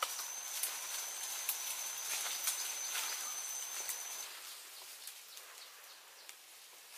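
Jungle ambience: a steady high-pitched insect tone that stops about four seconds in, with scattered light clicks and rustles.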